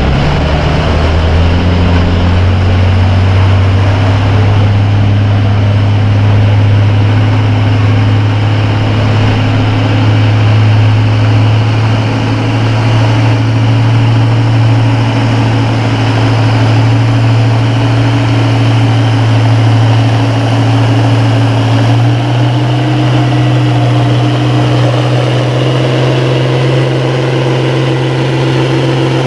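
Farm tractor engine running hard under load as it pulls a weight-transfer sled, a loud steady drone whose pitch creeps slowly upward and then steps up suddenly about three quarters of the way through.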